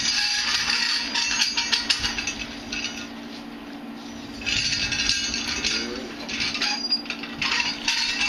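Flooring roller being rolled over freshly laid 2mm sheet flooring to press it into the tacked adhesive: rushing, rattling passes of a couple of seconds each with small clicks, three stretches with quieter gaps between.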